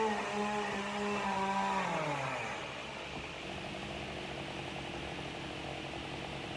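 Power saw running high on the roof, its pitch falling about two seconds in as it slows to a lower, steady run. It is the firefighters' saw for cutting a vent hole in the roof.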